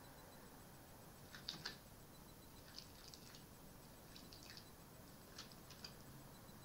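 Faint, scattered clicks and ticks in near silence, a few at a time, from a red fox moving about on a plastic garden table.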